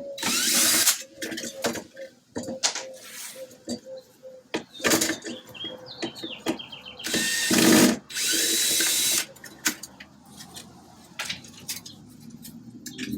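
Cordless drill-driver backing screws out of a clock's plastic backer, running in several short bursts of up to about a second. Clicks and rattles of the screws and parts come between the bursts.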